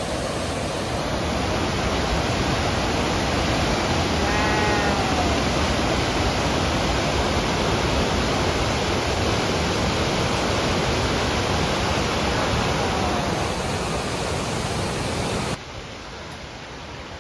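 River water rushing through rapids in a steady, loud rush that drops abruptly to a quieter level about 15 seconds in. A short falling call sounds faintly over it about four seconds in.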